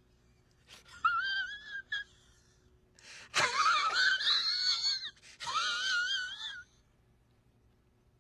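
A man laughing in a high-pitched, wavering squeal, in three bursts: a short one about a second in, then two longer, louder ones through the middle, breaking off near the end.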